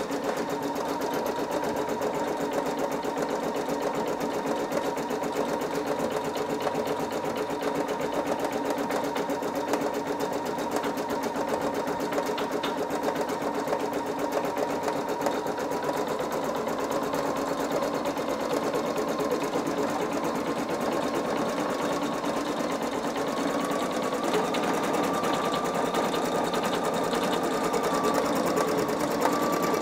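Singer EM9305 embroidery machine stitching out a design: the needle runs in a fast, steady rhythm over the motor's whine. The whine steps up slightly in pitch and gets a little louder in the last several seconds.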